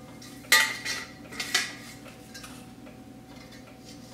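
Black metal stove pipe converter adapter and trim ring clanking and scraping against each other as the trim ring is fitted onto the adapter, a sharp clank about half a second in and a lighter knock about a second later.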